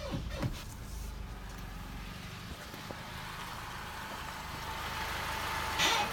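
2007 Honda Accord in motion, its steady road noise growing louder, with the car's unexplained squeaking: a few quick squeaks right at the start and loud, falling squeals returning near the end.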